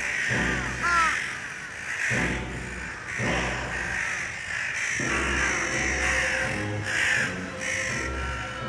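Crows cawing over and over, several calls overlapping one another.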